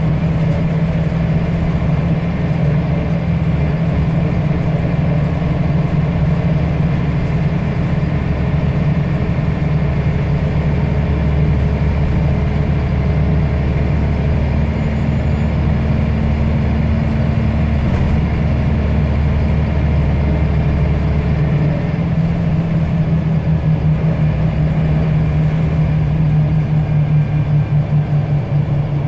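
Scania L94UB single-decker bus's diesel engine running steadily, heard from inside the bus. Its deeper rumble strengthens about a third of the way in and eases off about three-quarters of the way through, with a single sharp click a little past halfway.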